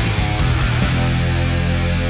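Heavy rock music with distorted electric guitar; a held, sustained chord fills the second half.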